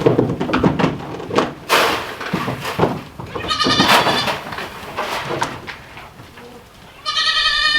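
Kiko goats bleating: one call about three seconds in and a longer one near the end, with scuffling and rustling of the herd moving about before them.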